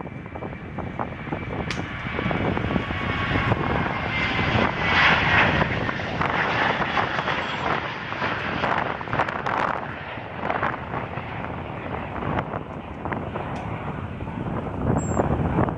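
Airplane engine noise as an aircraft passes, with a faint whine that slowly falls in pitch, loudest about five seconds in and then easing off.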